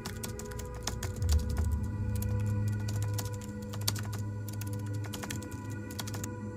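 Typing sound effect: rapid, irregular key clicks that stop shortly before the end, over a steady low ambient music drone.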